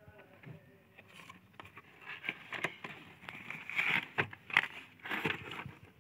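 Cardboard helmet box being handled, with irregular scraping and rustling and a few sharp knocks. It grows louder after about two seconds and dies away just before the end.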